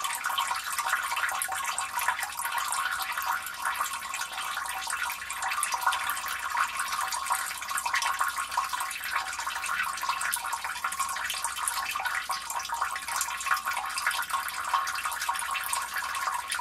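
Water running and splashing steadily down into a street gully drain, a continuous trickling splash with many small droplet flickers.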